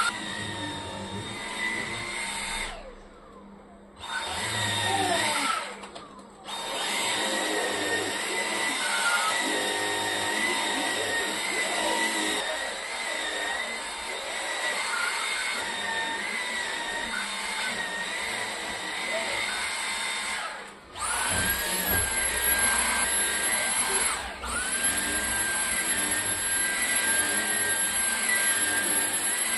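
Cordless stick vacuum cleaner running on sofa upholstery with a steady high whine. It cuts out briefly around three and six seconds in; about two-thirds of the way through it stops and spins back up with a higher rising whine, then cuts out and restarts once more shortly after.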